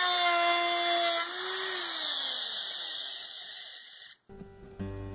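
Logo-intro sound effect: a mechanical whine over a high hiss, its pitch sliding down, cutting off sharply about four seconds in. Acoustic guitar music starts just before the end.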